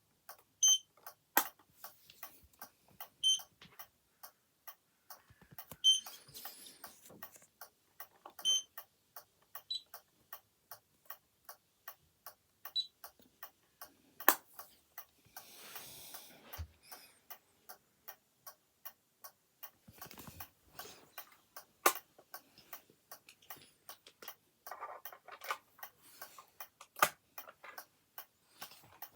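Steady rapid ticking, about three ticks a second, from the Bolid fire alarm equipment in alarm mode. Through the first ten seconds a short high beep sounds every two and a half seconds or so, typical of the control panel's piezo buzzer signalling a fire alarm. A few louder single clicks fall among the ticks.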